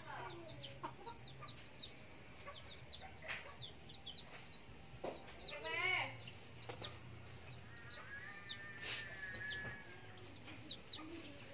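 Chickens clucking faintly, with quick high chirps throughout and a louder call about halfway through.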